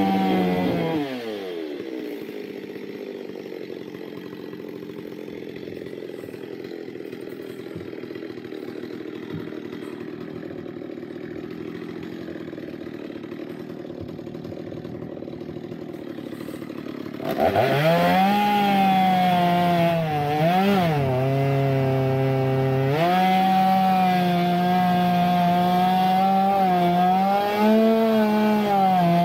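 Stihl 023 two-stroke chainsaw dropping from full revs to a steady idle about a second in, and idling evenly without stalling, its idle-speed (LA) screw freshly adjusted. About 17 seconds in it is throttled up again and cuts into a felled conifer log, the engine note dipping as it bogs briefly in the cut, then holding high revs.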